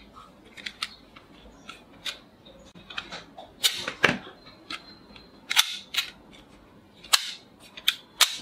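Plastic toy Bulldog revolver being handled and fired: a string of light mechanical clicks as the hammer is cocked and the cylinder turns, broken by louder sharp snaps as it shoots its rubber bullets, the first about four seconds in and several more toward the end.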